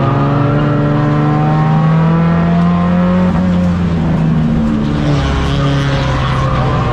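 A tuner race car's four-cylinder engine heard from inside the cabin, running hard under load. Its pitch rises slowly for the first few seconds, then falls as the throttle comes off, dropping lower about five seconds in.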